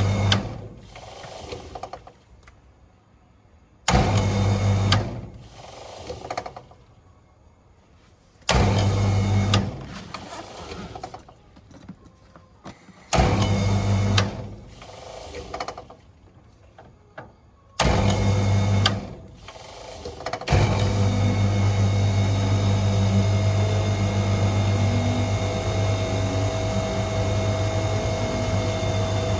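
Ducted air conditioner outdoor unit short-cycling: about every four to five seconds its contactor clunks in with a loud mains hum as the compressor and fans try to start, then drops out within a second or two. It does this five times, then about two-thirds through it stays in and the unit runs steadily with a constant hum. This is the fault of the system getting a call and dropping it continuously.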